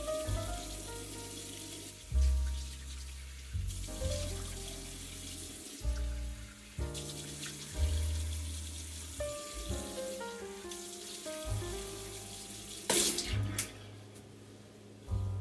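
Bathroom tap running into the sink, with splashing as hands rinse water over the face. A backing track with a deep, stepping bass line plays alongside it.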